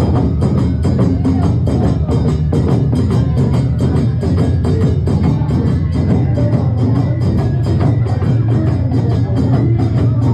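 Awa Odori festival music: drums and other struck percussion keep a fast, even beat.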